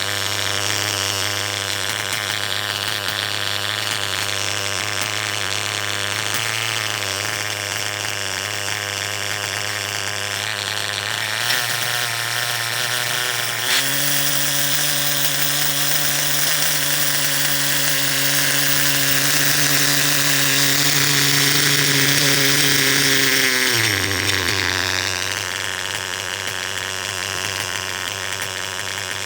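Engine running at idle, brought up to a steady higher speed about twelve seconds in, held there for about ten seconds, then let back down to idle. A random noise inside it is what is being listened for; the owner thinks a bearing may be going out.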